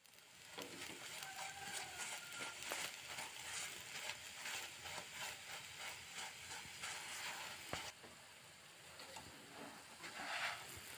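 Oil sizzling and crackling under a layered paratha frying in a non-stick pan, with now and then a sharp click of the spatula against the pan.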